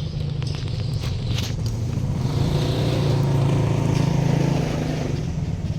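A road vehicle passing, its low engine rumble growing louder about two seconds in and fading near the end.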